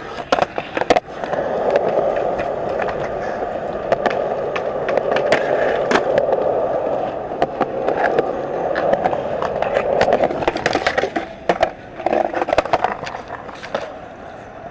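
Skateboard ridden across a skate park: a few sharp clacks of the board at the start, then the wheels' steady rolling rumble for about ten seconds, then a run of sharp clacks and knocks near the end as the board strikes and lands, before the rolling dies away.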